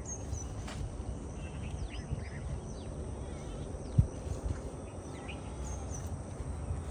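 Scattered short bird chirps over a steady low rumble of background noise, with a single dull thump about four seconds in.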